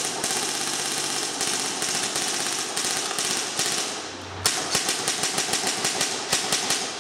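JG M4 Stubby Killer airsoft electric gun (AEG) firing on full auto from an 11.1 V battery: the gearbox cycling in a long rapid burst, a brief pause about four seconds in, then a second burst.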